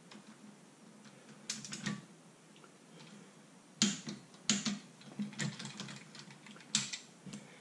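Torque wrench tightening a rear brake caliper pin bolt to 30 foot-pounds, giving a handful of separate sharp metal clicks, a few of them about a second apart.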